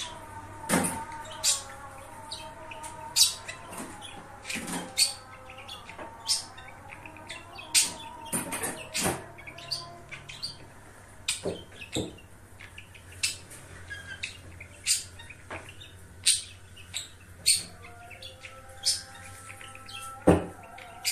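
Pet budgerigar warbling, a soft wavering chatter broken by short, sharp, high chirps every second or so at irregular intervals.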